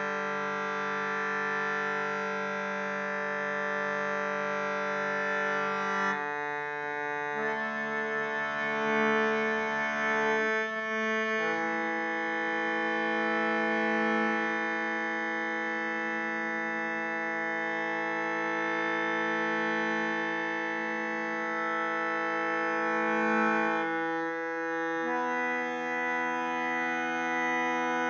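Shruti box playing a sustained reed drone of several notes at once. The combination of notes shifts a few times, about six, eleven and twenty-four seconds in.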